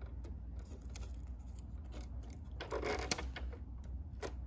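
Fingers handling a plastic toy school bus and a paper-backed sticker: small scattered clicks and taps, with a short rustle of the sticker and a sharp click about three seconds in.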